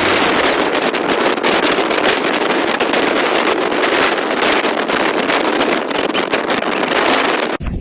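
A storm of gusting wind and driving rain: a loud, dense, flickering hiss that starts abruptly and cuts off shortly before the end.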